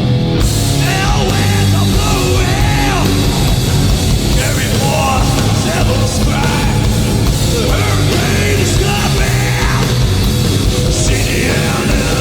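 Hardcore punk band playing live at full volume: distorted guitars, bass and drums, with shouting over the top.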